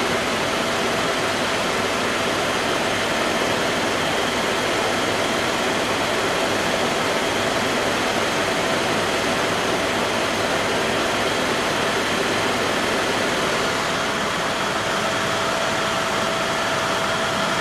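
Helicopter in flight, heard from inside the cabin: a steady, even rush of engine and airflow noise with a faint steady tone running through it.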